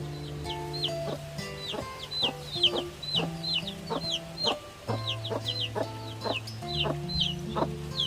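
Background music of plucked notes over held bass notes, with chicks peeping over it in quick, high, downward chirps about two or three times a second.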